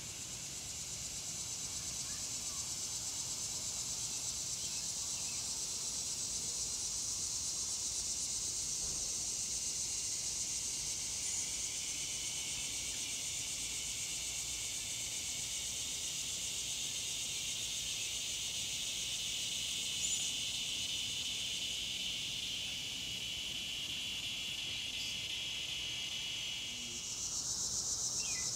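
Steady, high-pitched chorus of insects. Near the end one part of the chorus stops and a louder, higher-pitched one takes over.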